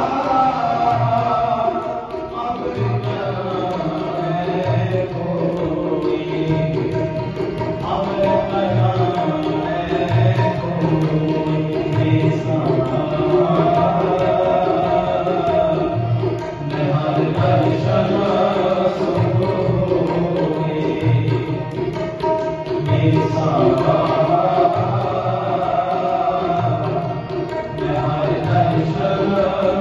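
Sikh shabad kirtan: harmoniums holding the melody over a steady tabla beat, with male voices singing the Gurbani verse.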